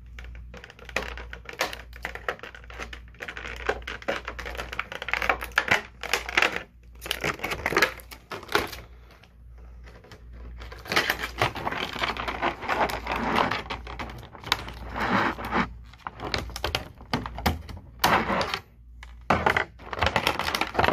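Stiff plastic blister packaging crinkling and clicking as it is cut and pulled apart to free an action figure, in irregular bursts with a short lull about halfway through.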